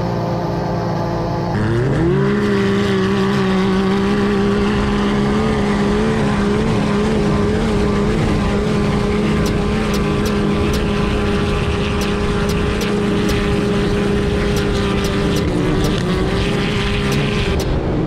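Side-by-side UTV engine revving up about a second and a half in, then held at steady high revs with small wavers in pitch until near the end.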